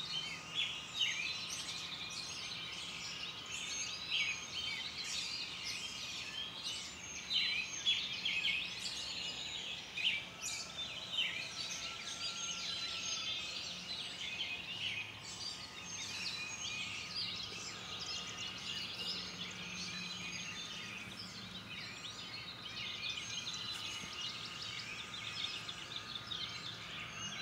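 Dawn chorus: many birds chirping and singing at once in a dense, overlapping chatter of high, quick calls, over a faint steady hum.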